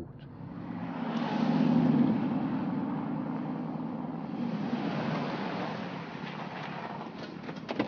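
Porsche Cayenne Turbo's twin-turbo V8 and tyres as the SUV drives across a paved lot and past close by, swelling over the first two seconds, then running on steadily and easing a little near the end.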